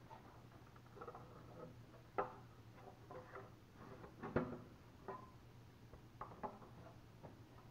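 Faint clicks and light knocks of a large plastic engine cover with built-in air intake being handled and set back over the engine, with the loudest knocks about two seconds in and again a little after four seconds.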